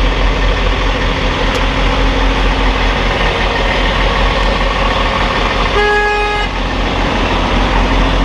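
The Kenworth W900 semi truck's horn sounds once, a short single-pitched honk lasting under a second, about six seconds in. The truck's diesel engine idles steadily underneath.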